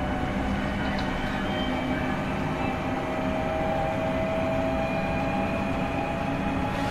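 Class 465/9 Networker electric multiple unit under way, heard from on board: a steady whine from its GEC Alsthom GTO-VVVF traction inverter and motors over rumbling wheel and rail noise. The whine edges slowly up in pitch.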